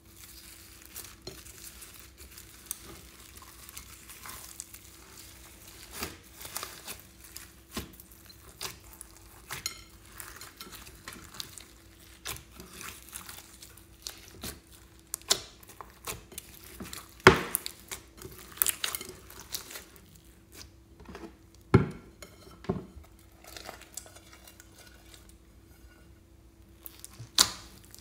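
Hands squishing, stretching and kneading clear slime packed with foam beads and glitter, giving a running crackle of the beads and irregular sticky pops and clicks. A few louder pops come past the middle and near the end.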